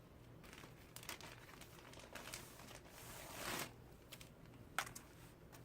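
Faint rustling and crinkling of laptop packaging being handled, swelling louder about three and a half seconds in, with a single sharp click near the end.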